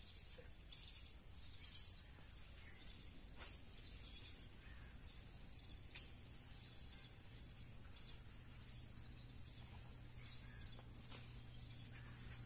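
Steady high-pitched insect chorus with a few faint bird chirps, and one sharp click about six seconds in.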